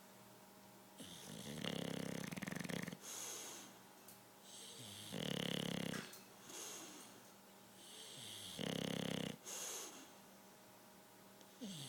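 English bulldog snoring loudly in its sleep: three long, buzzing snores about three and a half seconds apart, each followed by a shorter breathy exhale, with the next snore starting at the very end.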